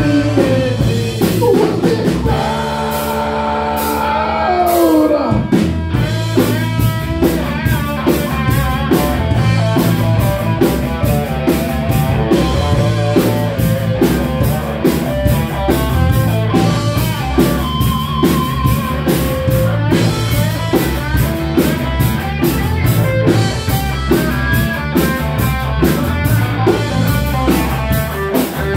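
Rock music from a band with drum kit, guitar and singing. About two seconds in, a held chord slides down in pitch, and then the steady drum beat comes back in.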